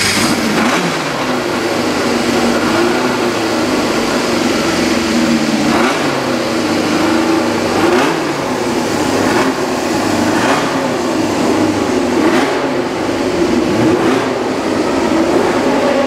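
1979 Shadow Formula 1 car's Cosworth DFV V8, just started, running at a fast idle and briefly blipped with the throttle every second or two.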